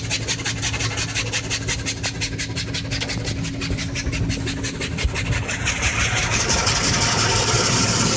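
Automatic car wash heard from inside the car: the rotating brushes swish against the bodywork at about four strokes a second over a steady low hum. About five and a half seconds in, a louder rushing hiss builds and takes over.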